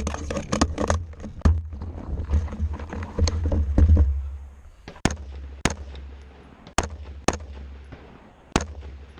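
Separate rifle shots from AR-15-type rifles at a rifle match, about ten at uneven spacing, several seconds apart later on. Over the first four seconds a heavy low rumble of the rifle-mounted camera being jostled as the shooter gets down prone runs under the shots, then fades.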